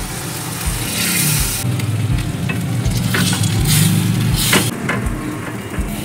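Water poured into a hot steel kadhai of cauliflower masala, sizzling, then a ladle stirring and scraping against the pan, with sharp scrapes about 3 and 4.5 seconds in.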